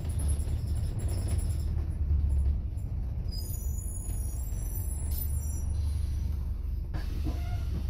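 Bus engine and road noise as a steady low rumble. High-pitched squealing comes in about halfway through, and there is a sharp click near the end.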